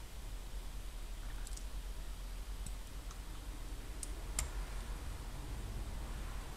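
Faint, sharp metallic clicks and ticks from small contact-breaker parts being fitted by hand into a car ignition distributor, with the loudest click about four seconds in, over a low steady hum.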